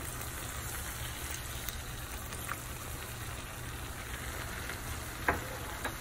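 Chicken thighs and fresh-tomato sauce sizzling steadily in a hot skillet with red wine just poured in. A short sharp click sounds about five seconds in.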